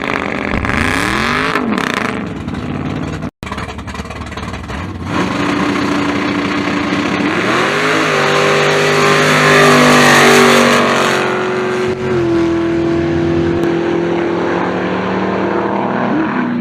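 Drag race car engines revving, their pitch sweeping up and back down twice, with one loud stretch of engine noise building to a peak about ten seconds in. It then settles to a steady engine drone. The sound cuts out for an instant a few seconds in.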